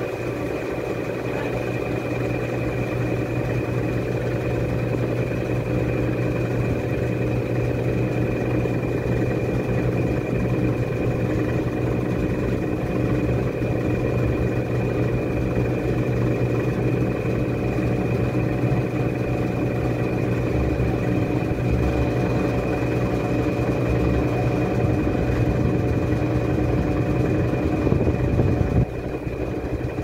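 Top-loading agitator washing machine running, its motor and turning tub giving a steady hum with a thin high whine above it. The level builds slightly over the first few seconds and dips briefly near the end.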